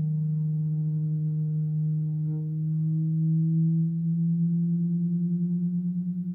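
Halldorophone sounding sustained electronic-feedback tones from its D-string and a sympathetic string. The low drone is steady at first. About four seconds in it starts to beat, a regular pulsing wobble that quickens as the two string pitches are bent against each other.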